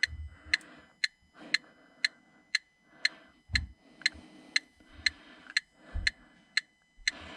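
Electronic gas leak detector ticking steadily, about two ticks a second, each tick a short high electronic click. Faint handling noise and a couple of low thumps lie under it.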